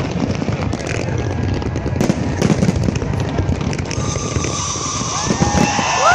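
Fireworks crackling and popping in a dense, continuous rumble with scattered sharp bangs; high whistling tones come in over the last two seconds.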